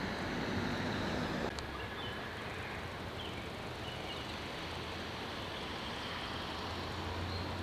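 Steady outdoor ambient noise with a low hum underneath and a few faint, short high chirps. There is a brief click about one and a half seconds in, after which the sound drops slightly.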